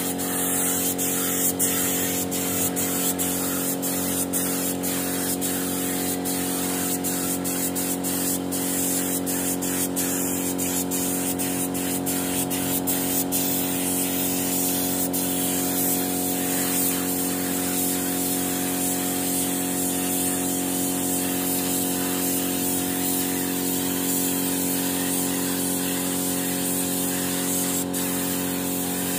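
Compressed-air paint spray gun hissing steadily over the constant hum of the air compressor that feeds it, with a run of quick ticks through the first half.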